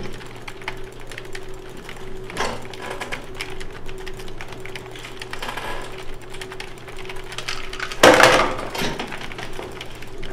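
Rapid clicking of computer keyboards and mice as gamers play, over a steady low hum. About eight seconds in, a louder scrape lasting about a second as a swivel chair is pushed back.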